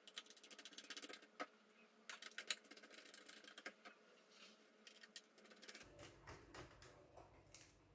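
Faint runs of small, quick clicks and ticks from a small screwdriver turning screws on a graphics card's backplate, in two bursts over the first few seconds, then soft handling noise as the card is picked up.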